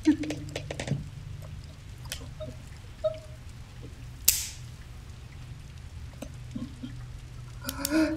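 A man's tense breathing and short strained whimpers over a steady low hum: a sharp breath about four seconds in and a moan near the end.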